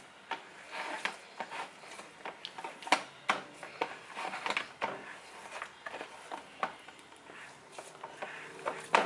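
Hands working soft bread dough in a plastic bowl: irregular soft pats and squishes, with light knocks and scrapes as the bowl shifts on the countertop. The sharpest knocks come about three seconds in and at the very end.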